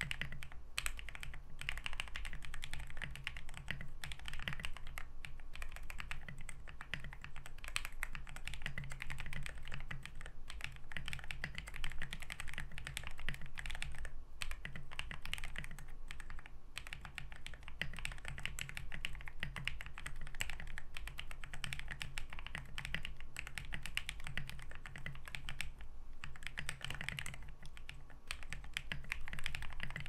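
Continuous typing on a custom mechanical keyboard: a steady, dense stream of key clacks with no real pauses.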